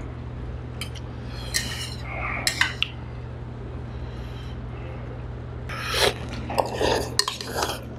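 Mukbang eating sounds: chopsticks and a spoon clinking and scraping on bowls and a metal hot pot as noodles are lifted, then a run of slurping and chewing from about six seconds in, over a steady low hum.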